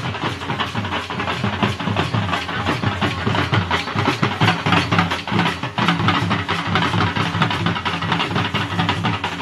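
Several dhol drums, large double-headed Punjabi barrel drums, beating a fast, dense rhythm together.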